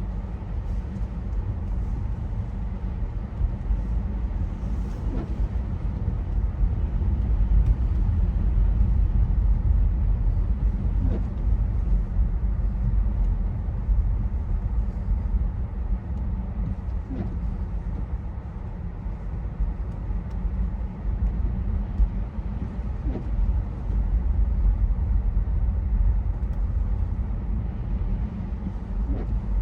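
Steady low rumble of a Tesla on the move, with a faint short rising tone about every six seconds.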